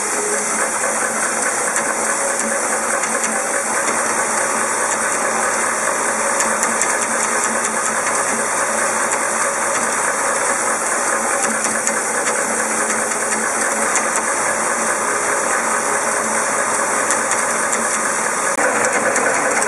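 Screw and PE/PC washer assembly machine running: a steady dense mechanical clatter of fine rapid ticks over a hiss, a little louder near the end.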